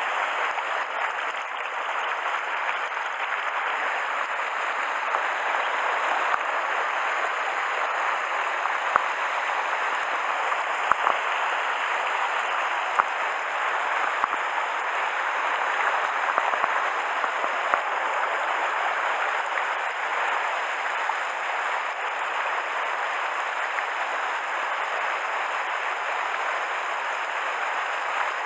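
Mountain stream rushing steadily over rocks, with a few faint sharp clicks.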